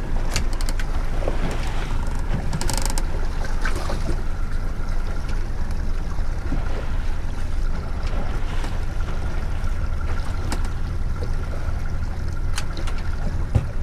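Yamaha 115 outboard running at trolling speed as the boat moves, a steady low drone with wind on the microphone and water noise. A few sharp clicks and knocks stand out, the biggest cluster about three seconds in.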